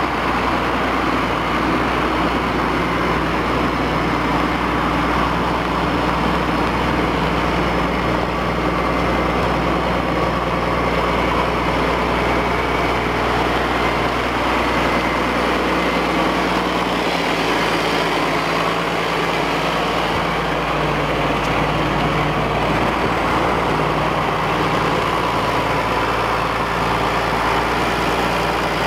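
John Deere 4630 tractor's six-cylinder turbo diesel engine running steadily as the tractor is driven slowly, its note shifting slightly a little past halfway.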